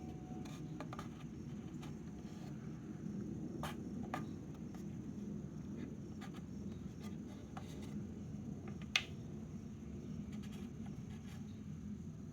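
Faint clicks and light scraping of wooden dowels and a small pin being handled in a puzzle box, with one sharper click about nine seconds in, over a steady low hum.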